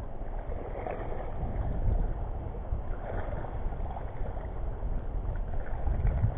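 Wind buffeting the microphone in a steady low rumble, over a wash of shallow sea water.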